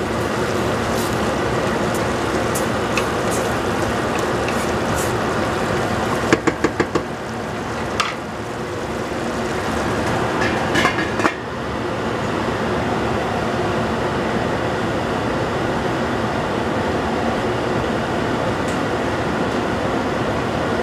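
Wooden spoon stirring vegetables in a stainless steel stockpot, with scattered taps against the pot and a quick run of them about six seconds in. Around eleven seconds in a few metal clinks as the lid is set on; under it all, a steady hiss of the pot simmering, which drops a little once the lid is on.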